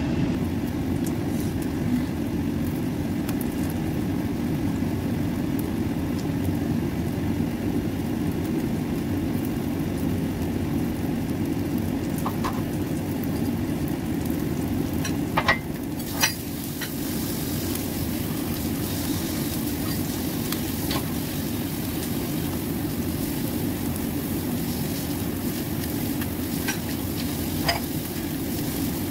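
Whitebait patties sizzling in oil in a nonstick frying pan, over a steady low rumble. A few sharp clicks come about halfway through, after which the sizzle turns brighter.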